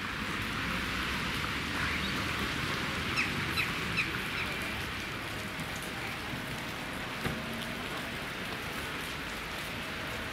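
Steady outdoor hiss with a few short, high chirps about three and four seconds in.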